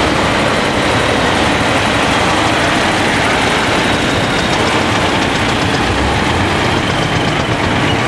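Large four-wheel-drive tractor's diesel engine running steadily close by.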